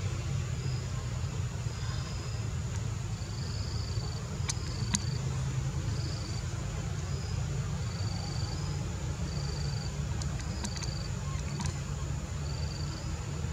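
Outdoor ambience: a steady low rumble under short, high insect chirps repeating about once or twice a second and a thin, steady high insect whine, with a few faint sharp clicks.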